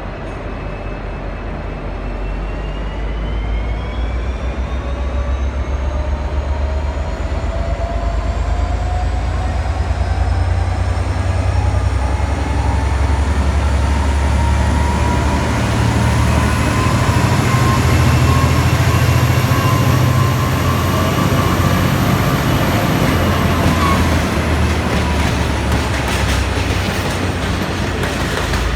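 V/Line N class diesel-electric locomotive, with its EMD 645 V12 two-stroke diesel, pulling away under power. A deep engine rumble builds over the first several seconds, and a whine climbs slowly in pitch as the train picks up speed, then eases slightly near the end.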